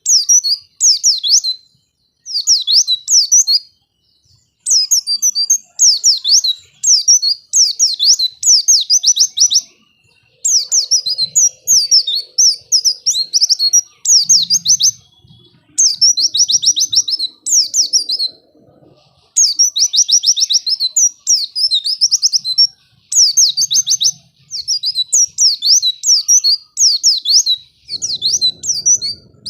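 White-eye (pleci) song: fast, high chirping phrases in bursts of a second or two, broken by short pauses. It is played as a lure song (pancingan) to set a reluctant caged pleci singing.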